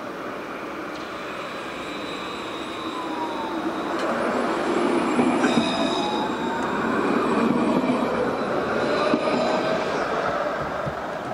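Alstom Citadis tram passing close by on grassed track, steel wheels on rail with electric whining tones that slide in pitch. It grows louder from about a third of the way in and is loudest as it goes by.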